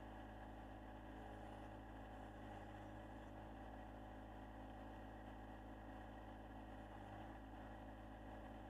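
Faint, steady idle of a John Deere 1025R compact tractor's three-cylinder diesel engine.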